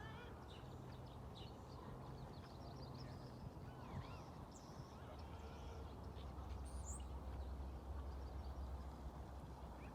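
Wild songbirds chirping and calling, many short chirps with a rising-and-falling call about four seconds in and a high whistle near seven seconds, over a low rumble that grows stronger past the middle.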